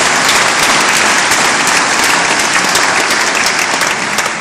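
Audience applauding, a dense steady clapping that begins to die away at the very end.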